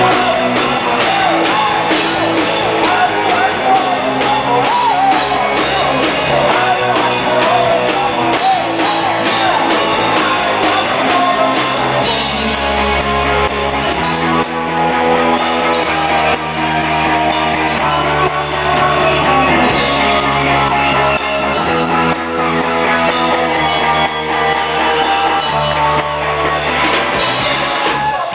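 Rock band playing live, with a lead singer over electric guitar, bass and drums, heard with the sound of a large hall.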